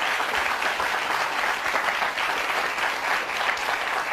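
Studio audience applauding steadily: dense, continuous clapping.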